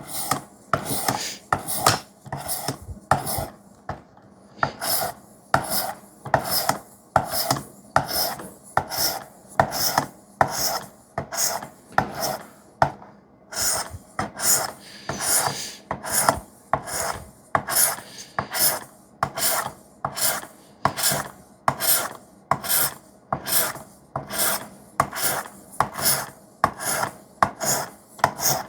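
Sharpening stroke after stroke: a wet 600-grit stone on a Work Sharp guided sharpener scraping along the edge of a knife blade in 3V steel, in an even rhythm of about two strokes a second.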